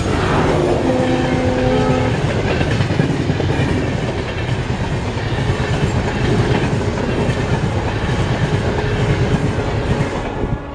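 Passenger coaches of a diesel-hauled train running past at speed on the track just behind the locomotive, with a short steady hum about a second in. The sound eases off near the end as the last coach goes by.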